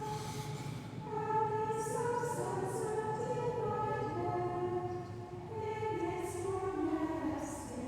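Choir of women's voices singing a slow hymn in long held notes that move step by step.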